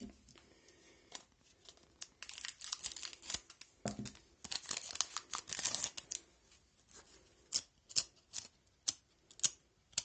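Foil wrapper of a hockey-card pack being torn open and crinkled, in two bursts of rustling a few seconds in. Near the end comes a run of sharp ticks as the cards are pulled out and handled.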